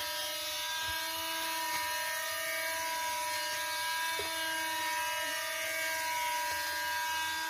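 Two small electric motors spinning the air propellers of a toy foam speedboat, a steady whining buzz.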